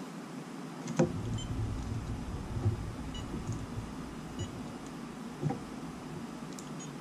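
Brief faint chirps from a cheap digital multimeter as its probe leads are touched together, the meter resetting each time instead of giving a steady continuity beep: a fault in the meter. A click about a second in and another near the end, over a low rumble.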